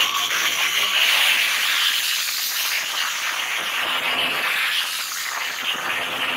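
Motorcycle rear tyre spinning against the pavement in a smoky burnout: a steady rushing noise with no clear engine note.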